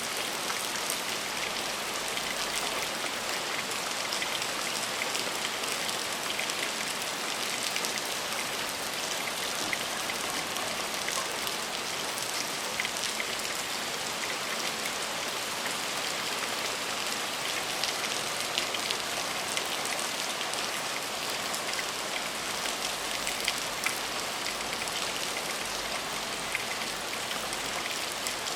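Steady heavy rain falling on a surface, an even hiss dense with the small sharp ticks of individual drops.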